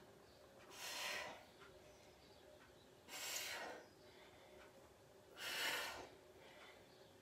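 A woman breathing hard during exercise: three forceful breaths, about two and a half seconds apart.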